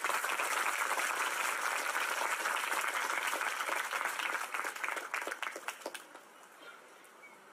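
Audience applauding: dense clapping that thins to a few scattered claps and stops about six seconds in.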